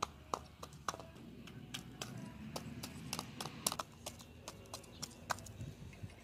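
A broiler (meat) chicken pecking rolled oats from a plastic bowl: quick, irregular beak taps and clicks against the plastic, several a second at times.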